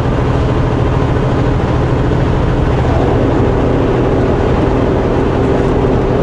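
Truck engine running steadily at highway speed with road noise, heard from inside the cab; a steady higher hum joins about halfway through.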